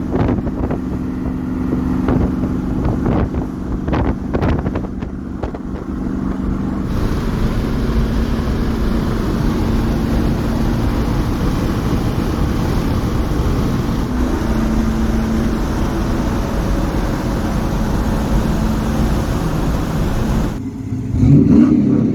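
Pickup truck's engine running steadily as the truck is driven, with some clunks in the first few seconds. The clutch is running on a freshly patched external slave rod. Near the end it cuts to a different, higher engine revving up and down.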